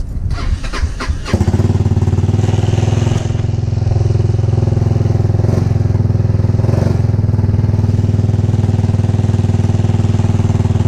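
A GY6-type single-cylinder four-stroke scooter engine starting about a second in after a few clicks, then idling steadily.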